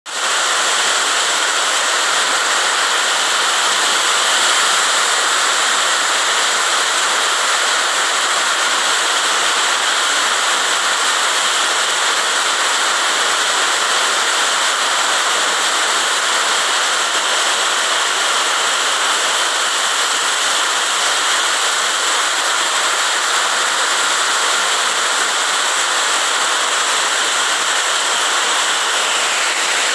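Heavy rain pouring steadily onto brick paving and grass, an even, dense hiss.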